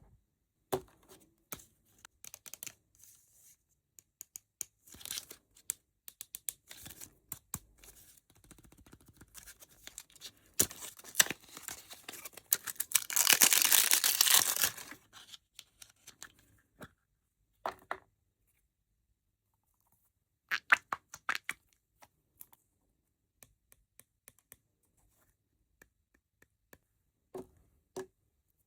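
Toy packaging being handled and torn open: scattered crinkles, taps and clicks with quiet gaps, and one loud stretch of tearing lasting two or three seconds around the middle.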